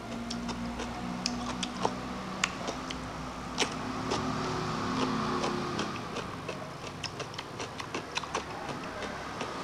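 Close-miked chewing and lip-smacking as a man eats a mouthful of rice and bamboo shoots: irregular sharp mouth clicks, several a second.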